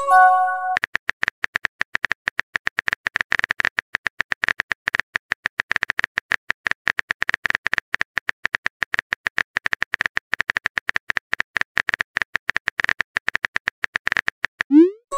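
Texting-app keyboard sound effect: a rapid, uneven run of key clicks. It opens with a short chime of a few notes as a message bubble pops in. Near the end a quick rising pop leads into the next chime as the typed message is sent.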